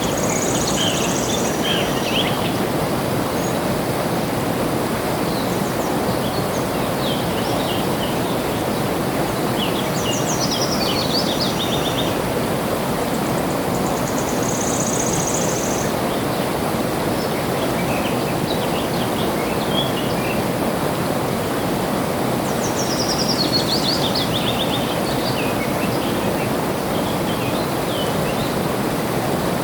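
Flowing water rushing steadily, with birds singing over it: scattered chirps, a high buzzy note three times, and a fast falling run of notes about ten seconds in and again near twenty-three seconds.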